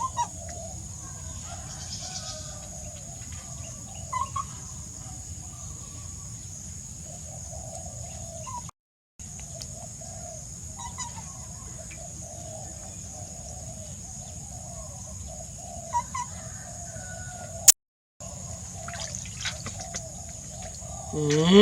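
Chickens clucking and calling in the background over a steady high-pitched drone; the sound drops out completely twice for a moment.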